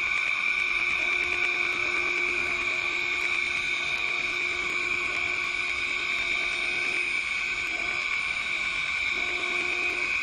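Window-cleaning robot's vacuum suction motor running with a steady high whine, holding the robot against the glass as it moves across the pane.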